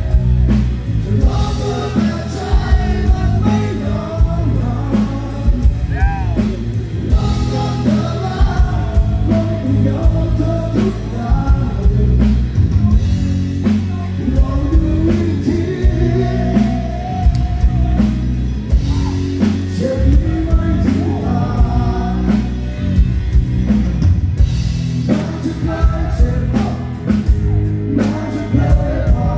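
Male singer performing a Thai rock song live with a band through a PA system: drums, bass and keyboard under the amplified vocal, with a steady beat.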